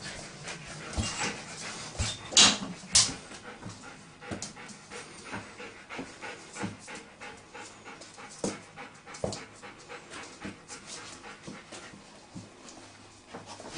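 A dog panting with her mouth open, a long run of quick, breathy puffs. A few louder puffs come about two to three seconds in.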